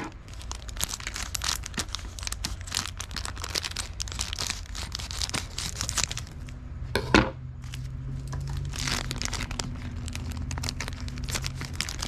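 Small plastic packaging bags crinkling and tearing as they are handled and opened by hand, with one sharp snap about seven seconds in.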